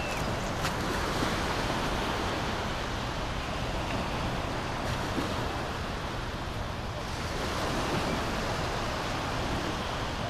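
Small ocean waves washing up on a shallow sandy shore, a steady rush of surf, with wind blowing on the microphone.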